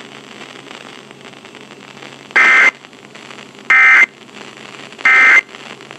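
Emergency Alert System end-of-message data tones: three short identical bursts of digital squawk about a second and a half apart, starting a little over two seconds in, which mark the end of the alert. Between them the radio broadcast's steady hiss and hum.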